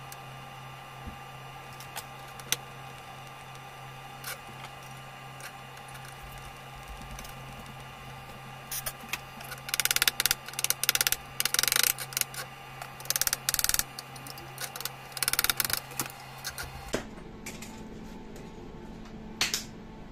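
Small hand hammer tapping a small bronze part held in pliers, in quick runs of light metallic taps over several seconds. Before the tapping there is only a steady low hum with a few scattered clicks.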